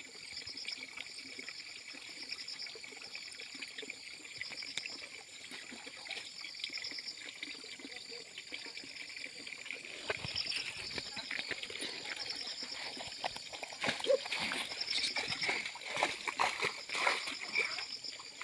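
Muddy pond water splashing and sloshing as a man wades waist-deep and sweeps hand nets through it to catch fish; quieter trickling at first, then heavier splashing from about halfway through.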